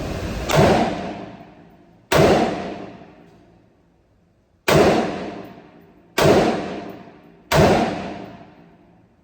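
Five gunshots from a Franklin Armory binary-trigger AR pistol fired one at a time in semi-automatic, spaced unevenly a second or two apart, each ringing out and dying away over about a second.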